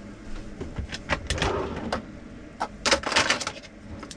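Clicks, knocks and rustling of kitchen items and food packaging being handled, thickest about three seconds in.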